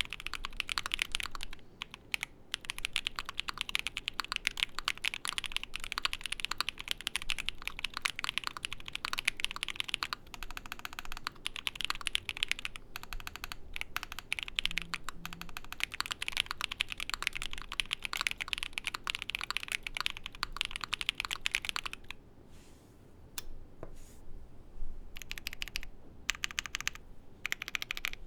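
Fast typing on an ai03 Vega custom mechanical keyboard with lubed Moyu Black linear switches in a polycarbonate plate with foam: a dense, steady clatter of keystrokes. It stops for about three seconds near the end, then starts again.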